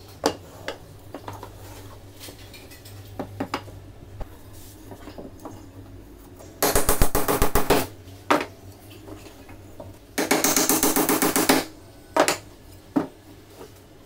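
Hammer driving nails into a wooden frame joint: two runs of rapid strikes, each lasting about a second and a half, with a few single knocks between them. Before the hammering come light clicks and knocks of wooden strips being handled on a table.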